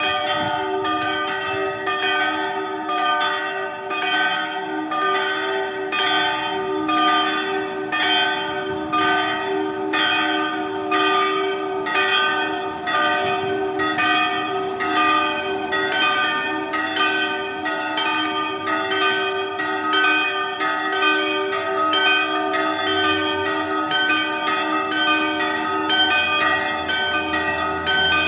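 Church bells pealing steadily, several bells struck in turn at about two strokes a second, their tones overlapping over a lingering hum.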